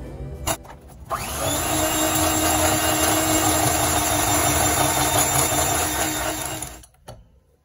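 Electric hand mixer running with its beaters in a glass bowl, beating an egg into creamed margarine and sugar: a steady whirr with a held hum, starting about a second in and cutting off near the end.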